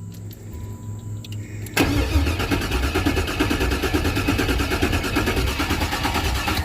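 Starter cranking an LS V8 with a fast, even rhythm, starting abruptly about two seconds in and stopping near the end, without the engine catching. The starter is a troublesome one that had seized and been freed, trying to turn over an engine that has been sitting.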